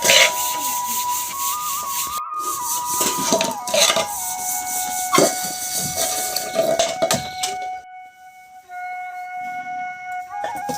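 Background music: a slow melody of long held notes. Under it, a rushing noise with sharp knocks runs until about eight seconds in, then drops away, leaving the music alone.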